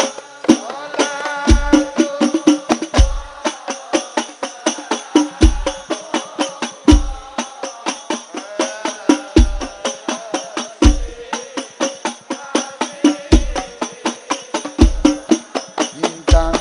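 Hadrah percussion ensemble playing an instrumental passage: rebana frame drums and tambourine jingles keep a fast, even beat, with a deep bass drum stroke landing in pairs about every four seconds.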